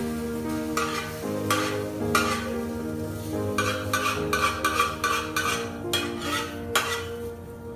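Metal spatula scraping and clinking in an empty steel frying pan, a series of short strokes that come thickest in the second half, over background music.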